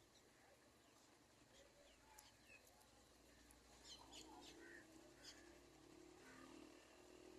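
Faint, scattered high-pitched bird chirps, with a quick cluster of them about four seconds in, over a low steady hum that comes in about halfway.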